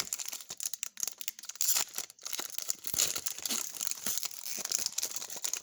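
Plastic trading-card pack wrappers crinkling and tearing as card packs are opened, a dense run of irregular crackles.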